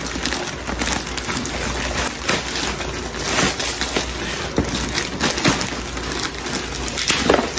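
Plastic packaging rustling and crinkling in irregular crackles as it is handled and pulled open.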